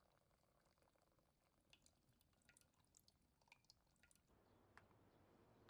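Near silence, with a few very faint scattered ticks.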